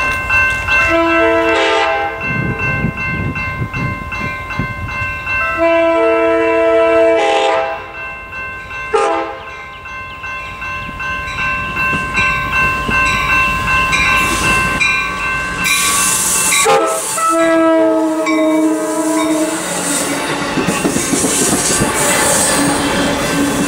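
Amtrak California passenger train's multi-note locomotive horn sounding long, long, short, long, the grade-crossing signal, as the train approaches. Near the end the bilevel passenger cars pass close by with a steady rumble of wheels on the rails.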